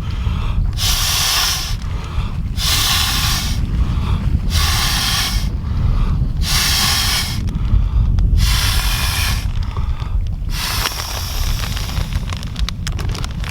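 A man blowing up an inflatable sleeping mat by mouth: six long breaths into the valve, about one every two seconds. It takes enough effort to make him dizzy. Wind rumbles on the microphone throughout, and there are a few small clicks near the end.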